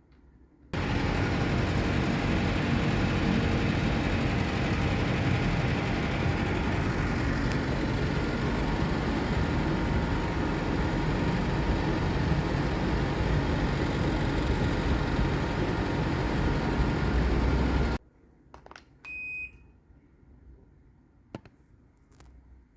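Daikin RKV35NVM4 inverter air-conditioner outdoor unit running, a loud steady rush of fan and compressor noise that starts and cuts off suddenly. A few clicks and one short beep follow near the end.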